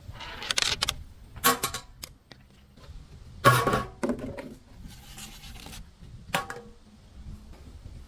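Objects being smashed and crushed: a series of sharp crashes and crunches, some with a brief ringing, the loudest, with a heavy thud, about three and a half seconds in.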